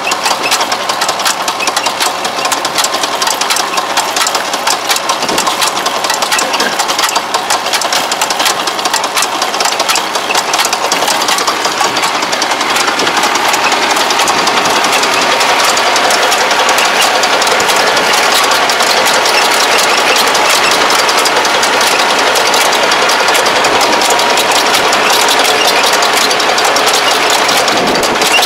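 Yanmar crawler tractor's engine running steadily under load while pulling a soil-fumigant injector, with the fast mechanical clatter of the injector's vibrating tines. The sound grows a little louder about halfway through.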